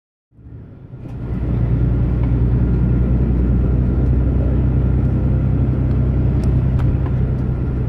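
Steady low engine drone and road rumble inside a moving bus's cabin. It swells up over the first second, then holds even, with a few faint rattling ticks.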